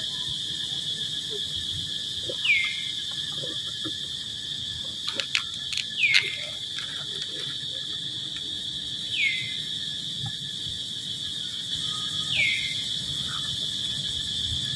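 Steady high-pitched insect drone, with a short falling chirp repeating about every three seconds, four times, and a few light clicks about five to six seconds in.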